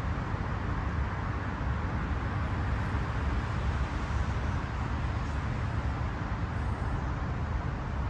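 Steady outdoor background noise: a strong low rumble with an even hiss above it, like wind and distant traffic.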